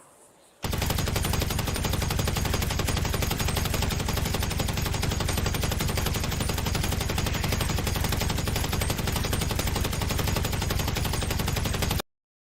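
Machine-gun fire sound effect: one long, unbroken burst of rapid automatic shots that starts about half a second in and cuts off suddenly near the end.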